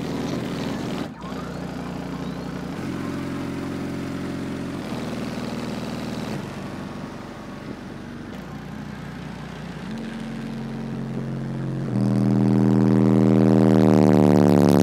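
Four 18-inch Sundown XCON subwoofers playing loud bass inside a closed truck, heard from outside. Deep tones hold for a few seconds, then step to another pitch. The bass swells much louder about twelve seconds in.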